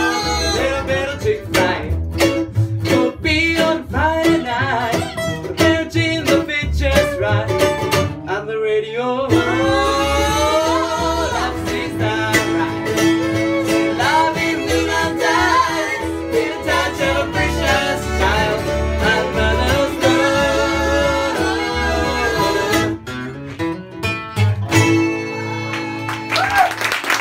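Live acoustic bluegrass band playing and singing a country song: fiddle, mandolin, acoustic guitar, resonator guitar and upright bass under group vocals.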